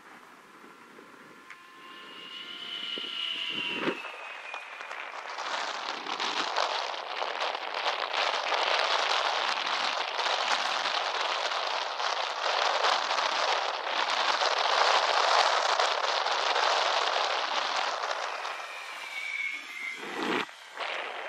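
Electric RC model airplane's motor whining as it flies past, its pitch falling as it goes by, about two seconds in and again near the end. In between, a long, loud rushing of strong wind on the microphone.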